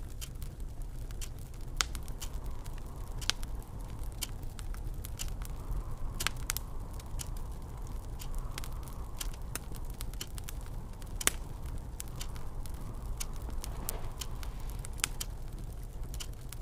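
Fire in a fireplace crackling, with irregular sharp pops, a few louder than the rest. Underneath runs a steady low rumble of wind, with faint gusts that swell and fade.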